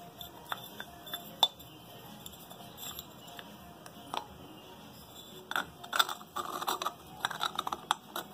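Grey plastic oil-reservoir cap being handled and screwed onto the oil tank of a Comet APS 41 diaphragm pump: a few scattered light clicks, then from about five seconds in a quick run of plastic clicking and rattling as the cap is turned on.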